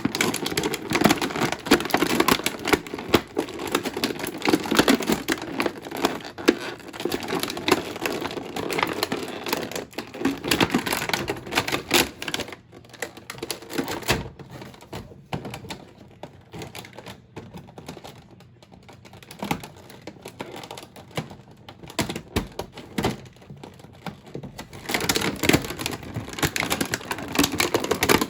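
Unboxing of a doll from its plastic-and-cardboard packaging: dense, rapid clicking and crackling. It eases off for several seconds in the middle and picks up again near the end.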